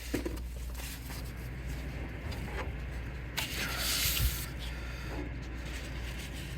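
A rag wiped with alcohol along the printer's carriage rail, rubbing off old grease, with a louder, hissy wipe of about a second in the middle. A steady low hum runs underneath.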